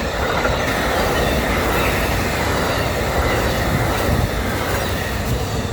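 Amtrak passenger train with Superliner coaches rolling past close by: a loud, steady rush of wheels on rails.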